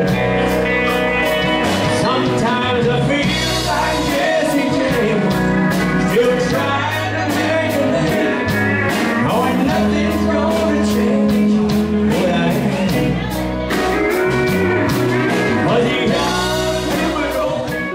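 Live country band playing: a man sings over guitars, keyboard and drums keeping a steady beat.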